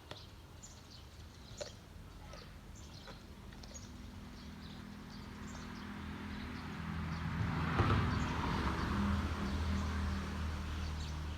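Small birds chirping repeatedly, with a couple of light clicks early on. From about four seconds in, a low steady drone builds up, is loudest around the eighth second and carries on.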